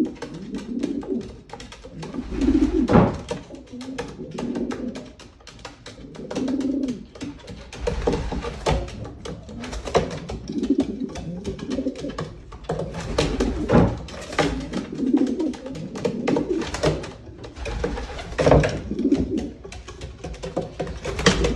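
Racing pigeons cooing repeatedly in low bursts, with many sharp clicks and knocks in between.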